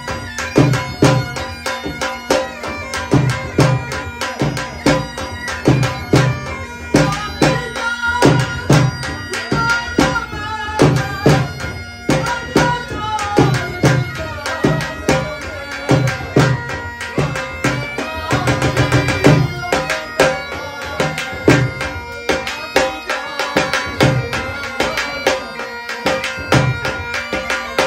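Folk bagpipe playing a melody over its steady drone, with a double-headed dhol drum beaten in a steady rhythm of about two to three strokes a second.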